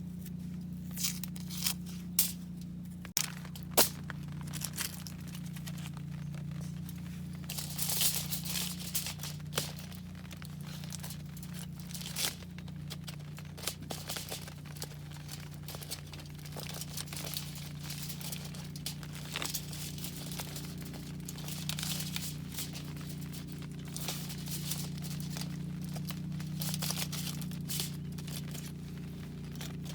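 Crinkling and rustling of something being handled, with scattered sharp clicks and knocks, over a steady low hum.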